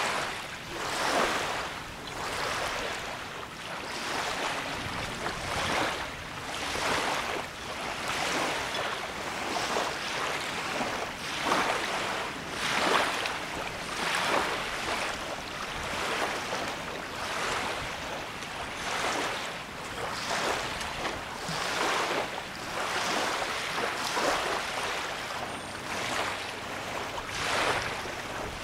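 Small lake waves lapping and splashing against the shore, a wash of water that swells and falls roughly once a second.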